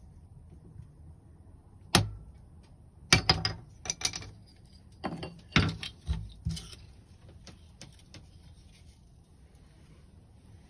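Freshly lit kindling fire crackling and popping: a string of sharp cracks through the first seven seconds or so, then fainter ticks.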